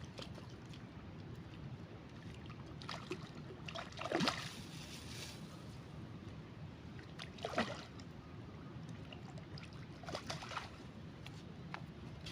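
River water splashing against the bank three times, about four, seven and ten seconds in, over a steady low rush of flowing water.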